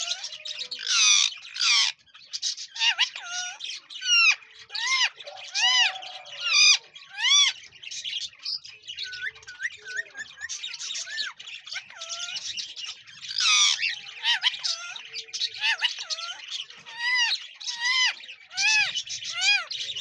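Rose-ringed parakeet calling: harsh screeches mixed with runs of short, arched whistled notes, several a second, coming in bursts with brief gaps.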